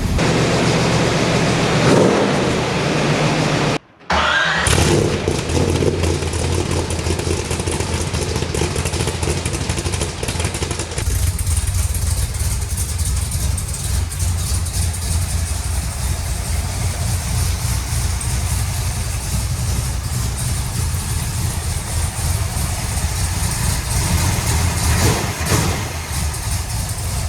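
1963 Corvette's small-block V8 running on its first start after a restoration, revving at first and then settling into a steady idle about eleven seconds in, with a brief rev near the end. The sound cuts out for a moment about four seconds in.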